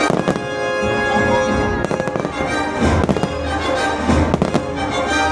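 Fireworks going off in several bursts, some with deep booms, over loud orchestral show music played on the park's speakers.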